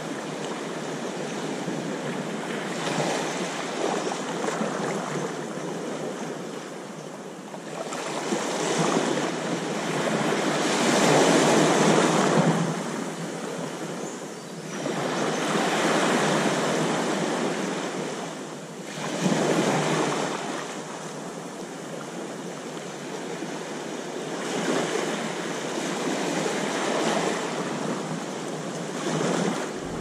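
Small waves breaking and washing up over a sandy beach, the surf swelling and fading every few seconds, with the biggest surge about eleven seconds in.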